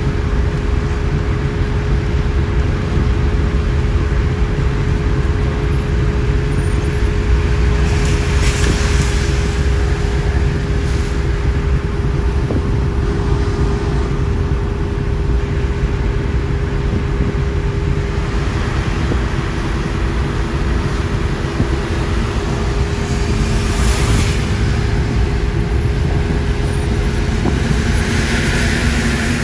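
Steady road noise of a vehicle driving on a motorway: a continuous low rumble with a constant hum, and a brief rush of hiss twice, about a third of the way in and again about four-fifths of the way in.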